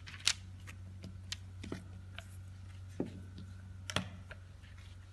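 A handful of light, sharp taps and clicks as dough balls and a rolling pin are handled on a silicone pastry mat, the loudest just after the start, over a steady low hum.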